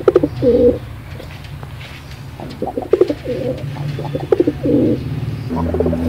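Domestic pigeons cooing in repeated throaty phrases: one right at the start, then a run of coos in the second half. A low steady hum comes in near the end.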